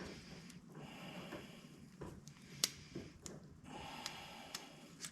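Faint handling noises with a few light, sharp clicks, as an old, dry and brittle rubber seal is worked off a power steering pump part by hand.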